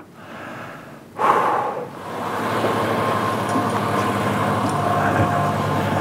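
A motor vehicle's engine running with a steady hum, louder from about two seconds in.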